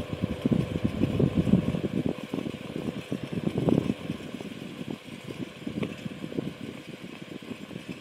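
Irregular rumble and rush of hot air blasting out of a homemade tee-pipe alcohol heater onto the microphone, over the steady hum of its small 120 mm fan. The rumble is stronger in the first half and weaker toward the end.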